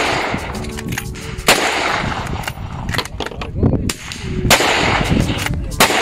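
Scoped rifle firing two sharp shots about three seconds apart, the first about a second and a half in. Each shot trails off in a long echo.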